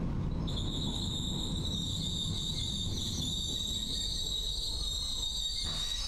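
Roma–Giardinetti narrow-gauge train running with a low rumble. About half a second in, its wheels start a high-pitched squeal that holds steady for several seconds.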